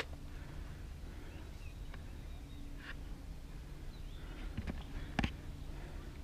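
Outdoor ambience: a steady low rumble with faint bird calls, and a few sharp clicks or taps, the loudest a little after five seconds in.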